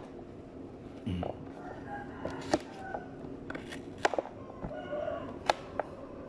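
Knife cutting through fresh rhizomes on a plastic tray: several sharp, irregularly spaced knocks as the blade goes through and strikes the surface.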